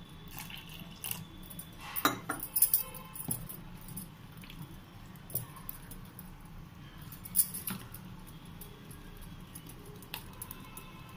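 A steel spoon stirring thick dosa batter in a plastic bowl, with scattered clinks and knocks of the spoon against the bowl, the loudest a cluster about two to three seconds in.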